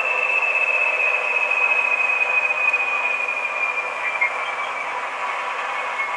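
H0 model SU42 diesel locomotive's DCC sound decoder playing a diesel engine sound through its small onboard speaker, tinny and steady, with a high whine that slowly drops in pitch.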